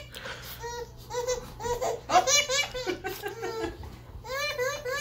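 A baby laughing in three bursts of high-pitched, choppy giggles.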